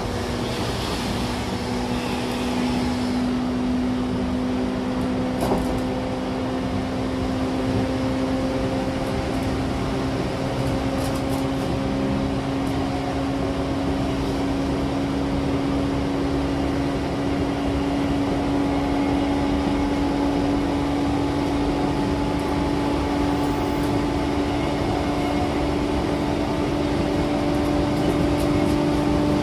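JR East E235-1000 series electric train running, heard from inside the passenger car: steady rail and running noise with a traction-motor whine that climbs slowly in pitch as the train gathers speed. There is a small knock about five seconds in.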